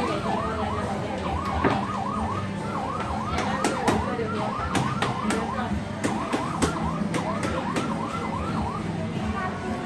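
Electronic fire-engine siren sound effect from a coin-operated kiddie ride, a fast up-and-down yelp repeating about three times a second with a few short breaks. Sharp clicks sound over it, mostly in the middle.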